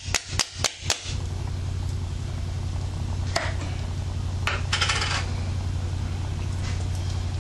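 Metal lid of a glass pasta-sauce jar being twisted open: a quick run of sharp clicks in the first second, then a short scrape a few seconds later, over a steady low hum.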